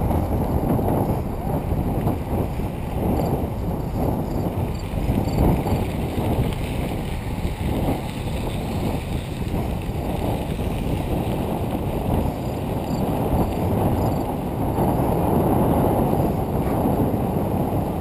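Wind noise buffeting the handlebar camera's microphone while a bicycle rolls steadily along a gravel trail, with the low rumble of tyres on the stone.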